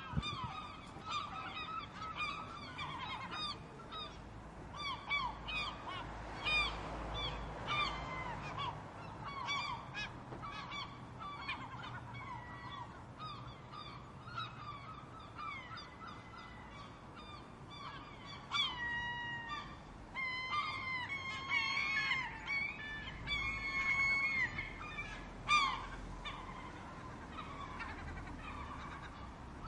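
Gulls calling over and over, many short squawking cries overlapping, busiest past the middle, over a low steady background rumble.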